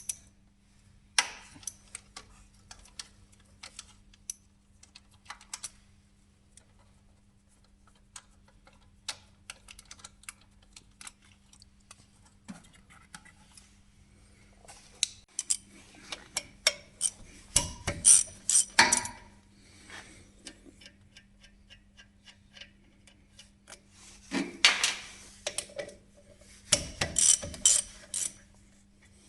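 Metal hand tools and parts clinking and clattering during suspension ball joint work, with scattered single clicks, busier clatter about halfway through and again near the end, over a steady faint hum.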